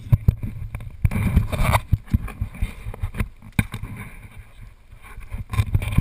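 Wind buffeting the action camera's microphone: an uneven low rumble in gusts, with knocks and rustles from the camera moving about on its wearer.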